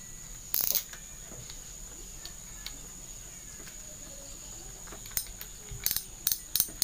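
Maguro Thor 8000 spinning reel clicking: sharp clicks start about five seconds in and come faster and faster. This is the clicking the reel makes when a fish strikes and takes line. A short loud rustle or knock comes about half a second in, over a steady faint high tone.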